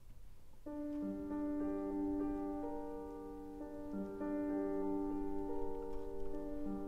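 Solo piano played quietly, starting about a second in after a brief silence: slow, sustained notes over a low note that returns about every three seconds.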